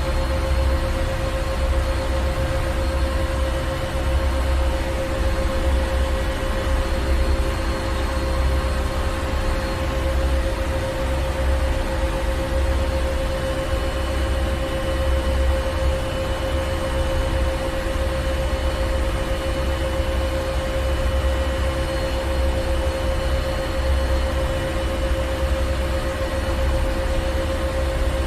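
Ship's engine room machinery running steadily: a constant drone with a low pulsing rumble and a steady hum over a hiss of noise.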